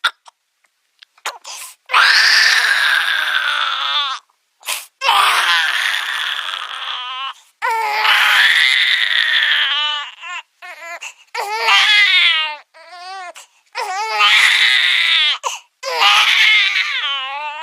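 A baby crying hard: long high-pitched wails of about two seconds each with short breaks for breath between them, turning into shorter, wavering sobbing cries in the second half.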